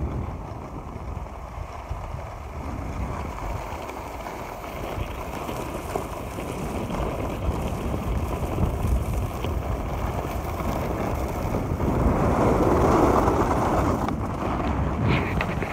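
Wind rushing over the microphone and skis sliding and scraping on packed snow during a downhill run, getting louder about twelve seconds in.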